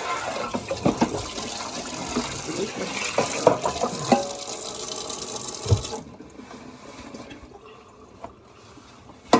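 Kitchen tap running into a sink, with knocks and clatter of something being rinsed under it; the water shuts off abruptly about six seconds in, leaving a few light clicks.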